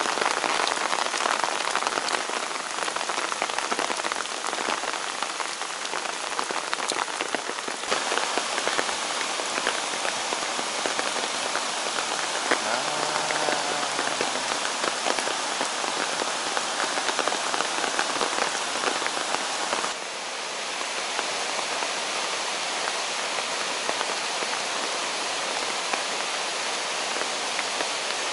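Steady rain falling through the forest, a dense hiss full of pattering drops.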